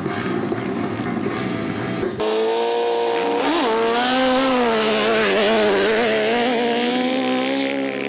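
Drag-racing motorcycle engines: rough engine noise at first, then, after a sudden change about two seconds in, a loud, high-revving engine note that climbs, dips and wavers as motorcycles launch and accelerate hard down a sand drag strip.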